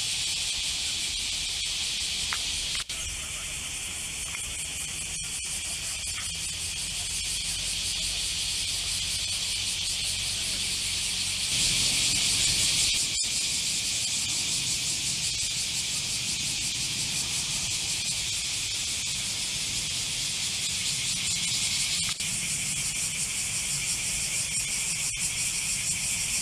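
A chorus of cicadas: a steady, high-pitched shrill drone that swells louder briefly about halfway through, with a low rumble underneath.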